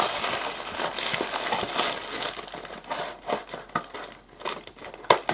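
Plastic wrapping on trading-card packaging crinkling and rustling, with scattered small clicks, as the box is opened by hand.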